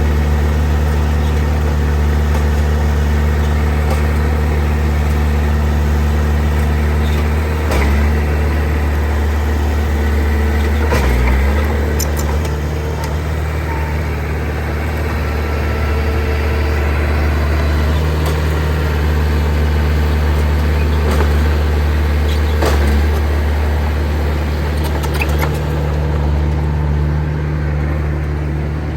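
Heavy diesel engine of earthmoving machinery running steadily with a deep drone, with several short metallic clanks and knocks scattered through.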